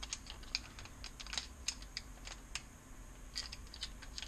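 Plastic anti-static bag being handled and peeled open, giving a scatter of light, irregular crinkling ticks.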